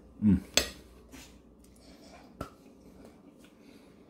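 A fork clinking against a plate a few sharp times, the loudest about half a second in and another at about two and a half seconds, with a short falling hum from the eater near the start as he chews hot food.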